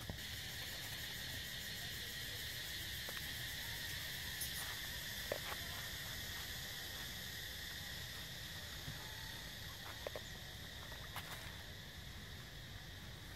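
Steady insect chorus: an even, high drone that is strongest in the first half and eases off a little toward the end, with a few faint clicks and rustles.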